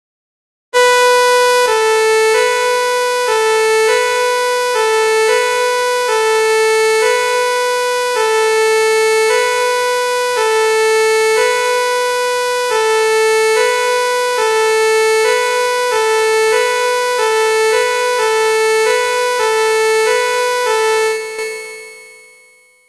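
French two-tone 'pin-pon' fire-engine siren, switching back and forth between two notes about a tone apart, roughly once a second. It has a bright, reedy sound and fades out near the end.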